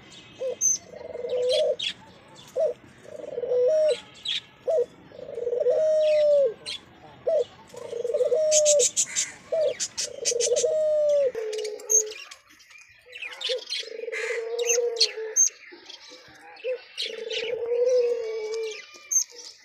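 Ringneck doves cooing over and over, each coo a short note followed by a longer, drawn-out one, with a brief pause about two-thirds of the way through. Small birds chirp and twitter faintly in the background.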